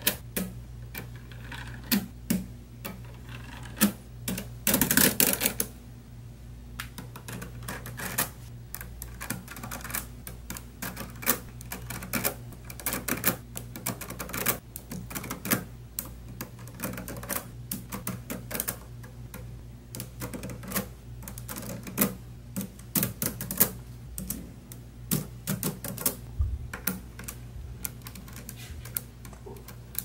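Small neodymium magnetic balls clicking as they snap onto a model built from them: irregular, sharp clicks and clacks, with a denser stretch of rattling about five seconds in.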